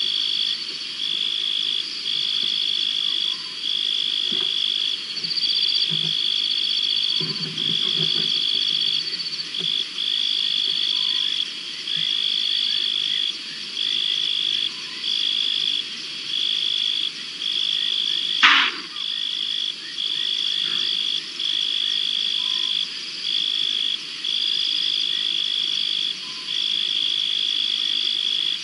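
Night chorus of calling insects and frogs: a high, steady trill broken into pulses about a second long, with a thinner tone above it. A single brief sharp sound cuts in about two-thirds of the way through.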